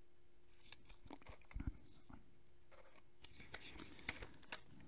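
Faint handling of paper inserts and small packaging: a few soft rustles and light taps, the clearest about one and a half seconds in and again near four seconds.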